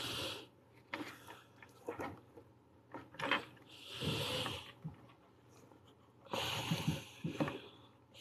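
Faint hand-work noises as polymer clay is rolled and handled: a few short hissy rubbing sounds and light taps, the longest rub coming late.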